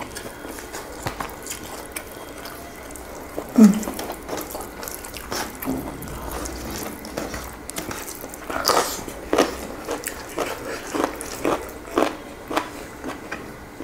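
Close-miked eating: wet chewing, lip smacks and small clicks as vegetables and omelette are eaten, with a denser run of smacks, about two a second, in the second half and one louder short sound about four seconds in.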